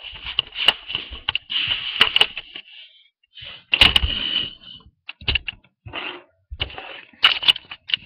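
Handling noise close to the microphone: irregular clicks and rattles of small objects being moved about, with a short pause partway through.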